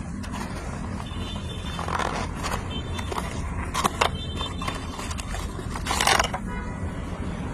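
Handling noise from unboxing a plastic toy figure: scattered scrapes and clicks, with a louder, longer scrape about six seconds in, over a steady low hum.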